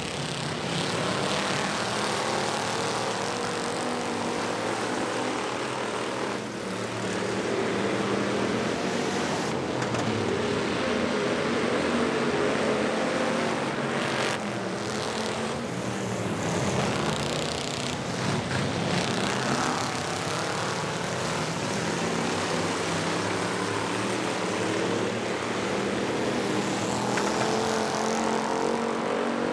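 Several cruiser-class dirt track race cars' engines running together, pitch rising and falling as cars rev through the turns and pass by.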